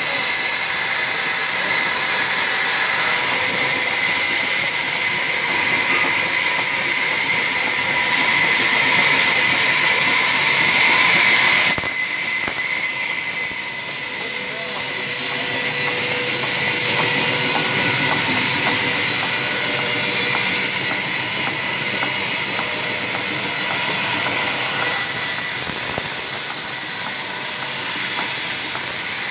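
Large sawmill band saw running and ripping through a log lengthwise: a steady, loud hiss of the blade in the wood with a steady whine over it. The sound changes abruptly about twelve seconds in.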